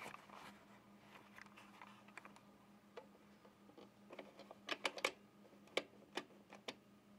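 Faint scattered clicks and taps of metal parts being handled on a sewing machine's needle plate and hook assembly, with a quick run of several clicks a little after the middle.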